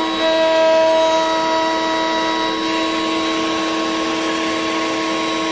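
Table-mounted router motor running at speed with a steady high whine, while a small wooden block is fed into the bit for a stopped cut.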